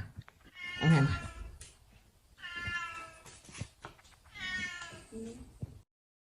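A cat meowing three times, each meow a drawn-out call about a second long.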